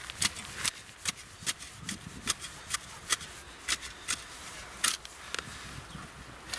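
A quick, irregular series of sharp clicks and scratchy ticks, about two or three a second, over faint background noise.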